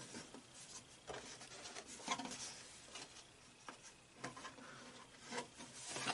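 Faint rubbing and rustling of packaging being handled during an unboxing, with a few brief scrapes and knocks.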